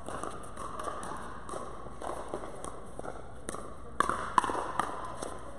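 Pickleball rally in a large indoor hall: sharp pocks of paddles striking the plastic ball, with two loud hits in quick succession about four seconds in during a volley exchange at the net, and the light scuffing of players' shoes on the court.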